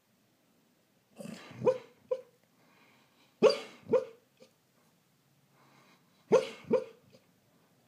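Sleeping greyhound woofing in a dream: three bursts of two or three short woofs each, a couple of seconds apart.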